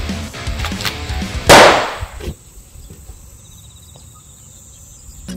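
Background music with a steady beat, cut by a single loud gunshot about one and a half seconds in that dies away over most of a second; after the shot the music drops out, leaving only faint background noise until music comes back at the very end.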